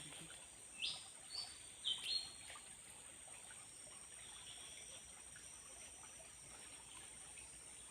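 A small bird gives about four short, high chirps in quick succession in the first couple of seconds, then falls silent over a faint, steady high-pitched background hum.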